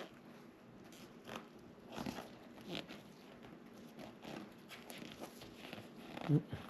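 Faint rustling and small clicks and crackles as the couch's upholstery material is pinched and pressed into place by hand, coming every second or so.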